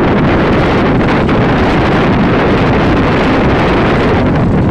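Steady wind buffeting a microphone held out of the window of a moving MEMU passenger train, mixed with the rumble of the train running along the track.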